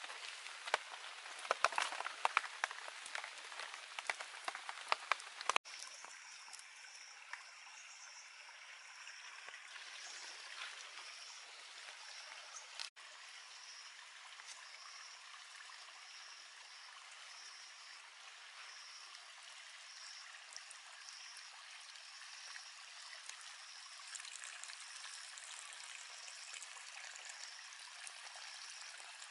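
Water trickling and flowing steadily, with a faint high chirp repeating about once a second in the background. The first five seconds or so hold a run of sharp, irregular clicks and splats.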